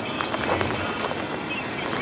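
Steady cab noise of a van at motorway speed: engine, tyre and road rumble with wind.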